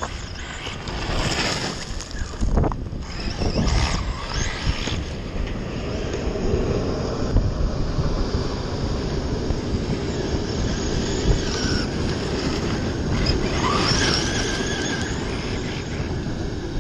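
Traxxas E-Maxx RC monster truck with a Hobbywing EZRUN 2200 kV brushless motor on 6S, driving over gravel. The motor's whine rises in short bursts, loudest in the first few seconds and again about thirteen seconds in, over a steady rumble of wind on the microphone.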